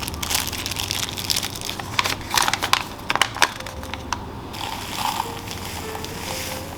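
Crunching and crackling as a strawberry plant starter kit is handled for planting, with scattered sharper clicks over the first few seconds, then quieter crackling.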